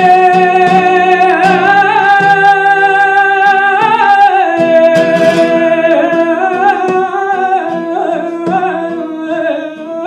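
Flamenco singer drawing out a long, wavering melismatic line in a farruca, over strummed flamenco guitar.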